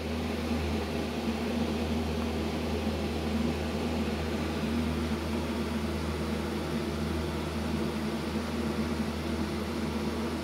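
Portable DVD player's disc drive spinning a loaded disc, a steady low whirring hum as it reads the disc before playback.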